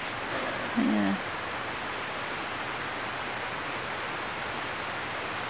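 Steady, even outdoor background hiss, with one short murmured vocal sound from a person about a second in.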